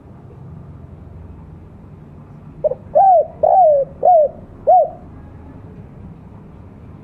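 Spotted dove (tekukur) cooing: a short lead note, then four loud coos about half a second apart, each swooping up and back down. A steady low rumble runs underneath.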